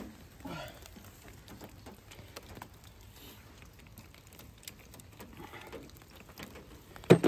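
Light rain pattering with faint scattered clicks of hand tools, then a brief loud metallic clatter of socket-set tools just before the end.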